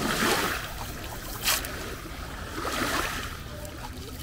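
Small waves washing onto the beach, swelling every couple of seconds, with a short sharp splash about a second and a half in, over a low rumble of wind on the microphone.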